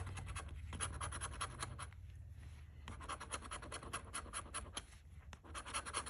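A large metal coin scraping the coating off a scratch-off lottery ticket in quick, rapid strokes, with two short pauses, about two seconds in and about five seconds in.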